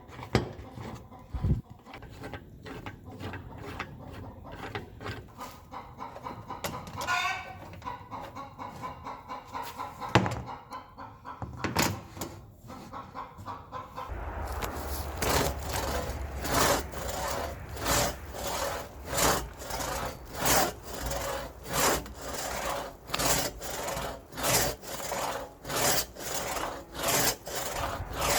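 Hand tool stroked back and forth over the steel blade of a vintage Disston one-man crosscut saw: quieter scraping and rubbing at first, then from about halfway steady rasping strokes, about one and a half a second.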